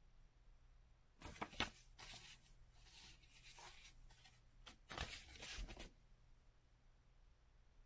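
Faint rustling of a folded paper sheet being unfolded and handled, in short bursts, the loudest about five seconds in.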